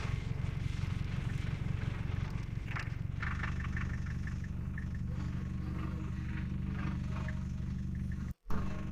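A vehicle engine running steadily at idle, with faint ticks and scrapes over it. The sound cuts out briefly near the end.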